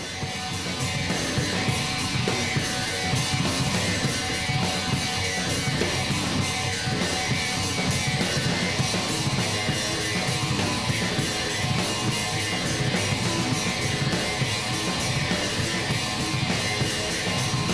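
Rock music soundtrack with guitar and drums, playing a fast, steady beat.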